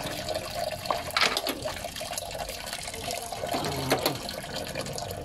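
Old, brown coolant pouring steadily out of a car radiator's opened bottom drain and splashing into a basin below.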